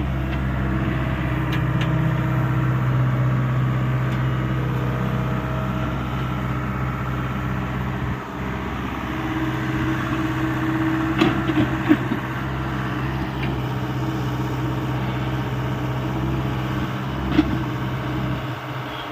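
Hyundai 85A mini excavator's diesel engine running steadily, with a couple of sharp knocks a little past the middle and one more near the end.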